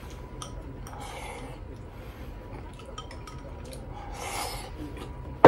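Chopsticks clicking and scraping against a ceramic bowl as food is scooped from it and eaten, with two short rushing sounds, about a second in and near the end. A sharp knock, the loudest sound, comes right at the end.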